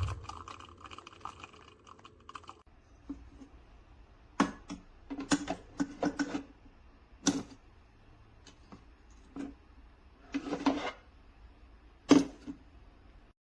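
A series of about a dozen irregular clicks and light knocks from objects being handled, with a short scrape near the end of the run. A faint steady hiss stops about two and a half seconds in.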